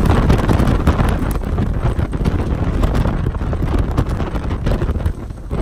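Heavy wind buffeting the microphone aboard a small motorboat running through choppy sea, with the rush of the boat and water underneath, easing slightly near the end.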